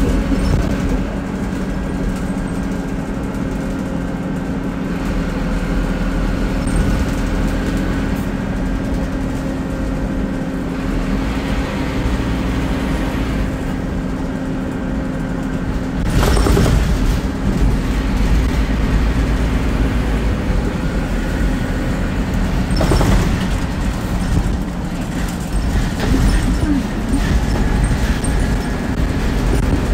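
Scania DC9 five-cylinder diesel engine of a double-decker bus running at a steady speed, with a loud burst of noise about 16 seconds in and another about 23 seconds in, after which the engine note varies more.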